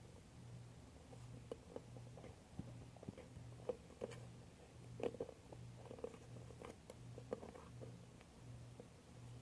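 Faint squelches and small ticks of school glue being squeezed out of its bottle, over a low hum that pulses about once a second.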